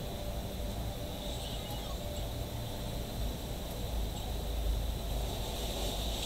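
Steady background noise: a low rumble with a faint, steady high-pitched whine over it.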